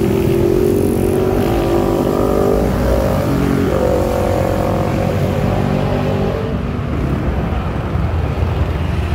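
Motorcycle engines passing by on a road, with the engine pitch stepping up about four seconds in as a rider accelerates.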